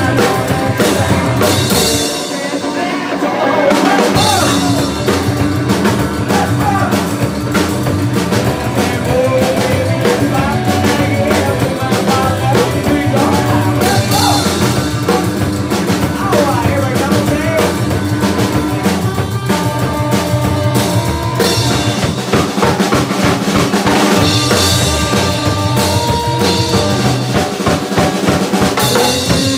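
Live rockabilly band playing: hollow-body electric guitar, upright bass and drum kit. The bass and kick drum drop out briefly about two seconds in, then the full band comes back in.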